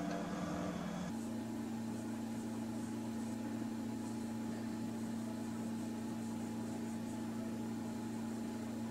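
A steady low mechanical hum of a few constant tones, which shifts to a slightly different pitch about a second in, over a faint hiss.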